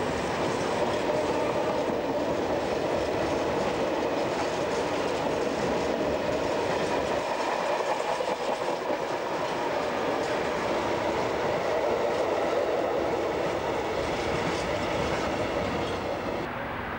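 Freight train of tank wagons rolling past close by: a steady rumble of wheels on the rails. The noise falls away near the end as the last wagon clears.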